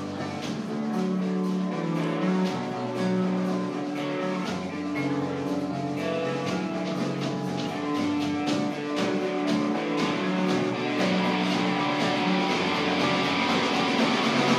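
Punk band playing live: electric guitars sounding held, picked notes over drums, with the kit hitting on a steady beat. It builds and gets louder, with cymbals washing in about eleven seconds in.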